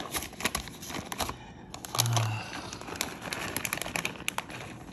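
Plastic bag of shredded sharp cheddar crinkling and rustling as it is handled and shaken out over a pan of macaroni, with a steady run of small crackly clicks.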